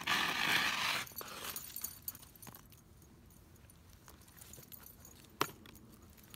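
Footsteps over crusty, icy ground with light metallic jingling from the leashed dog. It opens with a loud rustling crunch about a second long, then scattered light clicks and jingles, with one sharper click a little past the middle.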